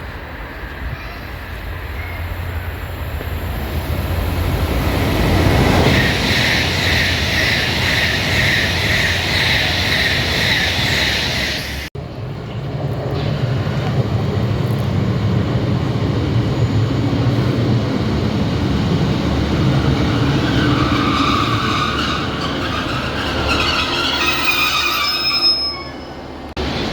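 A train running through a railway station, growing louder as it approaches, with a low rumble and high squealing from the wheels on the rails. The sound breaks off abruptly about twelve seconds in and picks up again with the same loud rumble.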